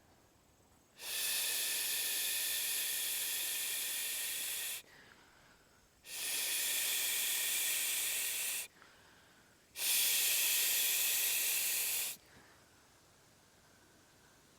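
Three spells of steady, high-pitched hiss, each two to four seconds long, starting and stopping abruptly with short quiet gaps between.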